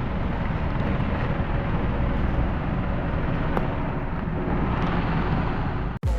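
Off-road 4x4 engine running steadily amid outdoor noise, cutting off abruptly near the end.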